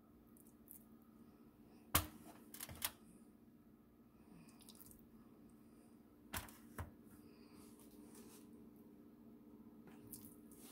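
Sharp taps and knocks as raw chicken drumsticks are set down in a disposable aluminium foil roasting pan with a metal rack insert. They come as a cluster of three about two seconds in and a pair a few seconds later, over a steady low hum.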